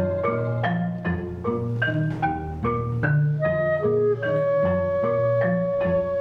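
Contemporary chamber ensemble of flute, clarinet, violin, cello, percussion and piano playing: a run of quick struck pitched notes over low bass notes, with a long held note entering about four seconds in.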